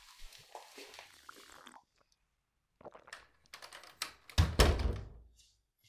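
A few light clicks and knocks, then one heavy thunk about four and a half seconds in that dies away over about a second.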